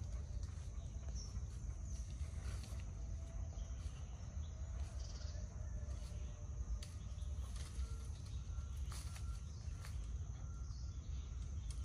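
Rural outdoor ambience: a steady high-pitched insect drone, a few short bird chirps and occasional light clicks or rustles over a low rumble.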